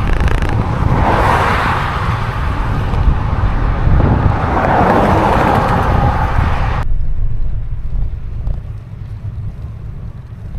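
Outdoor road noise: wind rumbling on the microphone, with two swells of traffic going by. About seven seconds in it cuts off abruptly to a quieter, lower rumble.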